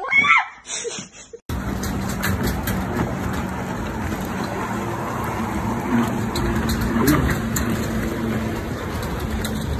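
A short, loud squeal that falls in pitch, then, from about a second and a half in, a steady hiss of wind and water with a low, steady hum of a jet ski engine idling.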